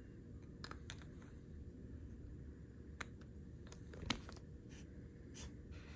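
A few small clicks and taps of a Visconti fountain pen being handled, the loudest a single sharp click about four seconds in as the cap is put back on over the nib.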